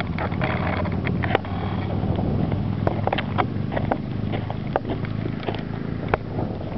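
Wind rumbling on the microphone, with scattered sharp clicks at irregular times.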